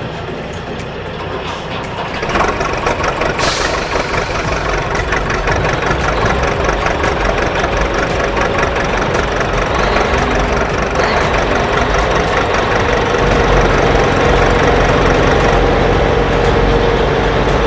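Heavy vehicle engine sound of a backhoe loader, running steadily and growing louder about two seconds in, with a brief hiss shortly after.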